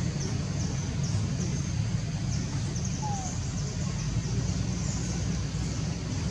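Outdoor ambience: a steady low rumble with a series of short, high chirps repeating two or three times a second.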